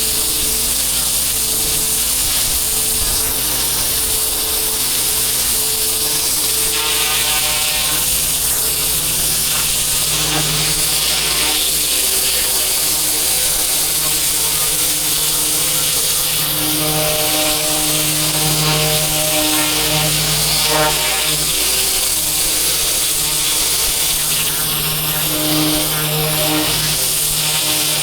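Pressure washer running steadily: a constant engine or pump drone under the hiss of the high-pressure water jet hitting paving.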